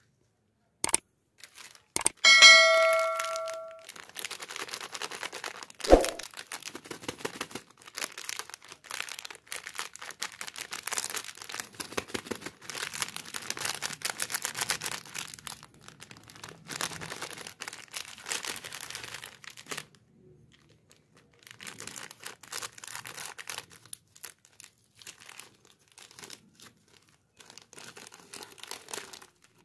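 Plastic wafer wrapper crinkling and tearing as it is worked open by hand, in long spells of dense crackle. A short bell-like chime sounds about two seconds in.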